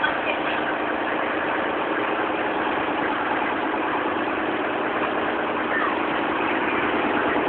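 Boat engine running steadily with an even, unchanging drone.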